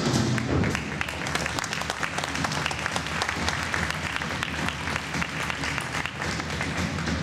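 Audience applauding, a dense patter of hand claps, starting just as the routine's music cuts off.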